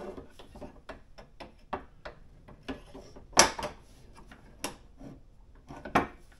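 Metal panel-clamp bar and its clamp blocks being handled and set on oak boards: a string of small clicks and rattles with a few sharper knocks, the loudest about three and a half seconds in and another near six seconds.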